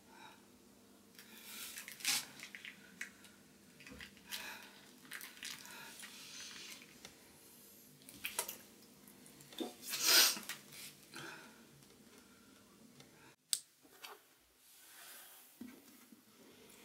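A couple kissing: soft, wet lip smacks and breaths come in short, scattered bursts, the loudest about ten seconds in. A faint steady hum runs underneath and cuts off suddenly near the end.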